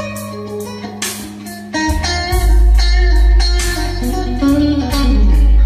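Electric guitar music with a heavy bass line and drum strikes, played back through a pair of Celestion Ditton 44 three-way loudspeakers driven by a valve amplifier with four EL34 output tubes. The bass swells in strongly about two seconds in.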